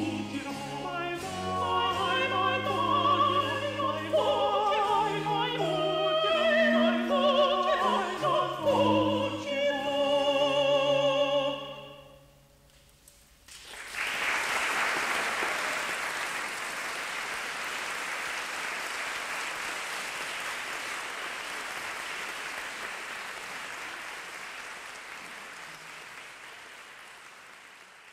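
Closing bars of a baroque vocal duet, mezzo-soprano and alto voices with harpsichord and viola da gamba, ending about twelve seconds in. After a brief silence an audience applauds steadily, fading out near the end.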